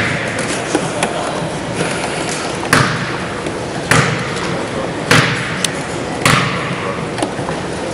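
Basketball bounced slowly on a hardwood gym floor, four strong thuds about a second apart with a few lighter knocks between, echoing in the hall.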